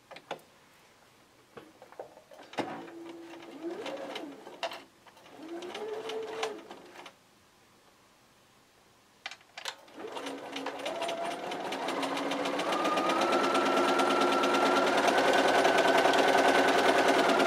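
Bernina sewing machine stitching a quilt seam. It makes two short, slow runs a few seconds in, with a few clicks. About ten seconds in it starts again, its pitch rising as the motor gathers speed, then runs steadily at speed to the end.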